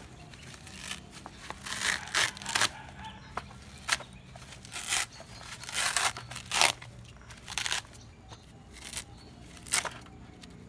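Loose coir fibre being torn out of the inside of a cut coconut husk by hand: a dozen or so short, irregular ripping sounds.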